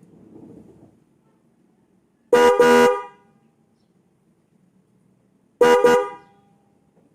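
Car horn sounded twice, about three seconds apart, each time a quick double honk with a strong, bright tone and rich overtones.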